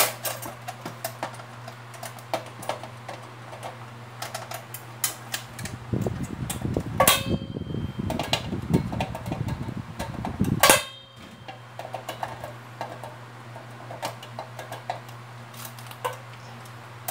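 Long-nose pliers and tie wire clicking, tapping and scraping against the plastic base of a bathroom scale as the wire is worked through it and twisted, with a stretch of rough handling noise in the middle. A steady fan hum runs underneath.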